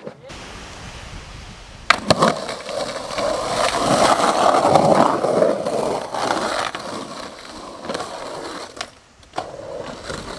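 Skateboard wheels rolling on rough painted concrete in a skate bowl, a continuous rumble that swells and eases as the skater carves. A sharp clack of the board comes about two seconds in, with a couple more clacks near the end.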